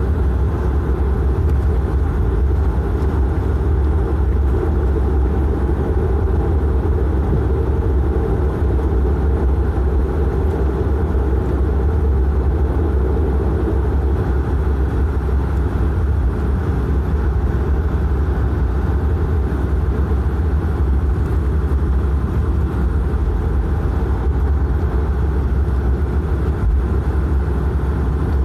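Cabin noise of a De Havilland Canada Dash 8-400 taxiing, dominated by the Pratt & Whitney Canada PW150A turboprop and its propeller just outside the window. It is a steady, even, low drone with a dense rumble above it.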